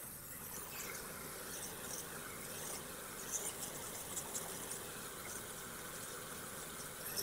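A pressure washer running steadily, its engine droning and its water jet spraying onto house siding, heard faintly.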